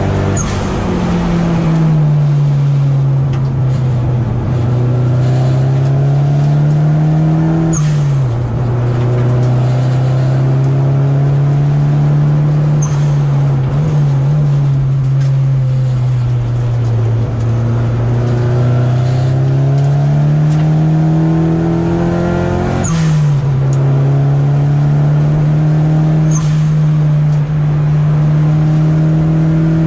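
Nissan 200SX's turbocharged four-cylinder engine heard from inside the cabin, pulling hard up through the gears: its pitch climbs steadily, then drops sharply at each gear change, with a short sharp sound at several shifts. In the middle it falls away as the car slows, then climbs again.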